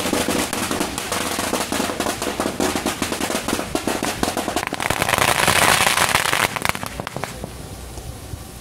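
Strings of firecrackers going off in dense, rapid cracks, loudest about five to six and a half seconds in, then stopping abruptly about seven seconds in and leaving a low steady rumble.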